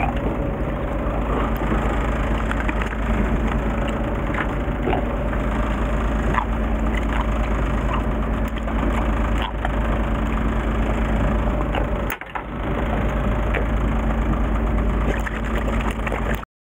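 Fishing boat's engine running steadily with a low hum, under scattered sharp clicks and knocks from handling tackle and the cooler box as a caught pufferfish is unhooked into it. The sound dips briefly past the middle and stops abruptly just before the end.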